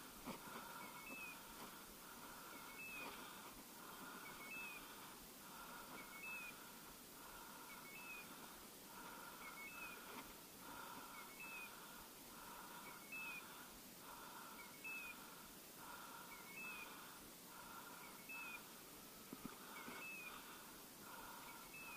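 Faint electronic beeper collar on a hunting dog, sounding the same short call with a rising chirp over and over, about every 1.7 seconds.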